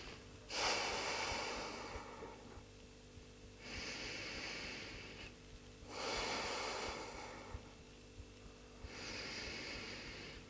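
A person breathing slowly and deeply while holding a yoga stretch: four audible breaths in and out, each a breathy hiss of about a second and a half to two seconds with short pauses between.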